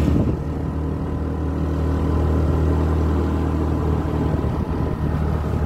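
Car engine running at a steady speed, a low even hum that does not rise or fall.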